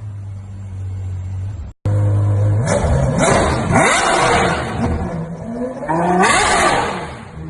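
Ferrari 812 Superfast's naturally aspirated V12 idling steadily, then, after a brief break in the sound, revved three or four times, each blip rising in pitch and falling back.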